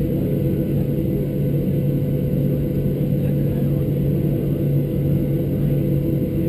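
Cabin noise of a Boeing 737-600 taxiing, heard through the fuselage: the steady drone of its CFM56-7 jet engines at taxi power, with a constant low hum.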